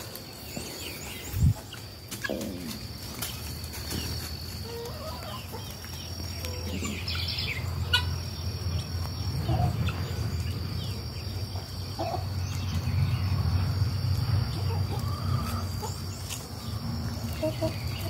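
Farmyard fowl, chickens and guinea fowl, calling now and then over a steady high-pitched drone. A low hum builds from about a third of the way in.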